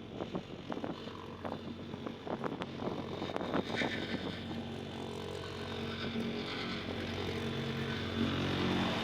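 Diesel engine of heavy road-paving machinery running steadily and growing louder, with scattered knocks and clicks during the first few seconds.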